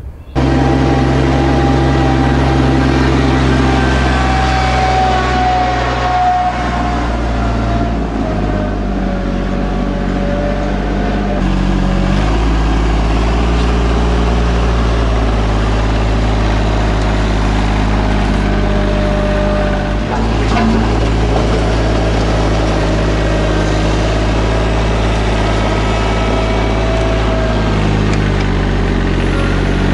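RK 24 subcompact tractor's diesel engine running steadily at work, its note stepping up and down a few times between about 8 and 12 seconds in.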